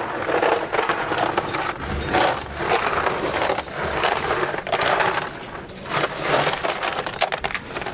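Repeated clinking and rattling of small hard pieces being handled and knocked together.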